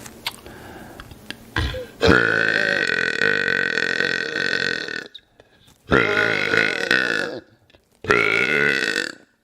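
A man burping loudly three times: first a long, drawn-out burp of about three seconds, then two shorter ones.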